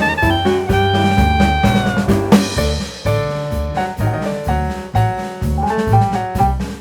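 Background music with drums, bass and melodic instruments, in a jazz-like style with a steady beat.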